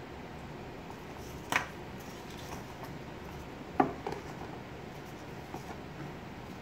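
Cardboard toilet-paper-tube puppets knocking and tapping against a clear plastic storage bin as they are set inside it: two sharp knocks, about one and a half and four seconds in, the second the loudest, then a few fainter taps.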